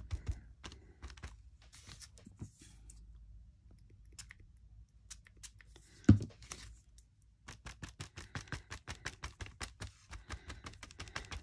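Handheld alcohol-ink applicator with a foam pad dabbed onto tape on a sheet of paper, giving light soft taps. About six seconds in there is one louder knock, then a quick run of dabs, several a second.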